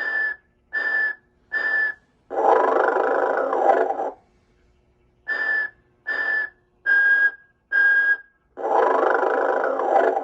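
Telco Motion-ette animated Mrs. Santa Claus figure playing its snore: a long, noisy snore of about two seconds alternating with runs of short, evenly spaced whistles, three in the first run and five in the second, in a repeating cycle.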